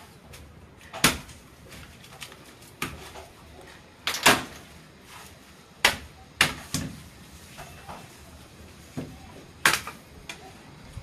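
Machete blade chopping into a coconut's fibrous husk on a wooden block: a series of sharp, irregular knocks every second or two, the loudest about four and nine and a half seconds in.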